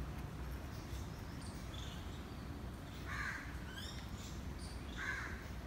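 A crow cawing twice, about three and five seconds in, with a quick run of high small-bird chirps between the caws, over a steady low background rumble.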